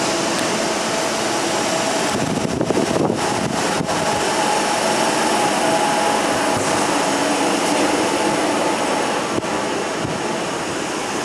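Docklands Light Railway train pulling out of the platform, its electric traction motors whining over the steady running noise of the wheels on the rails as it moves off past the platform.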